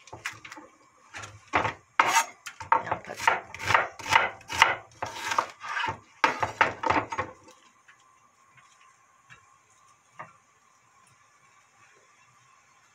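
Chef's knife chopping an onion on a wooden cutting board, quick cuts about three a second, stopping after about seven and a half seconds. A single light knock comes a couple of seconds later.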